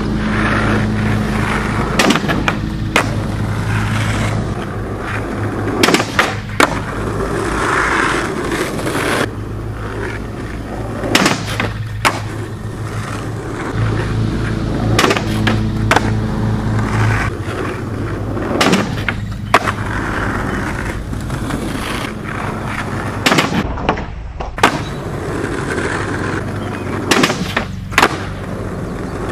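Skateboard wheels rolling on asphalt with a steady low rumble, broken about ten times by sharp clacks of the board against the road and a kicker ramp.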